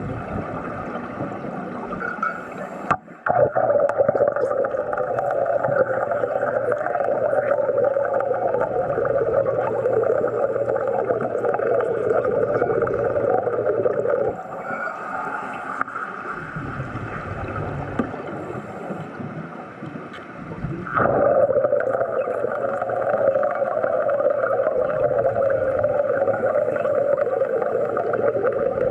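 Underwater wet-welding arc from a stick electrode: a steady crackling buzz that strikes up suddenly about three seconds in, stops near the middle, and strikes up again about two-thirds of the way through, over a constant hiss of air and bubbles.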